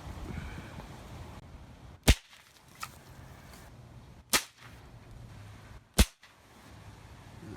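Three gunshots, about two seconds apart, fired at a LiPo battery pack, with a few faint clicks between them.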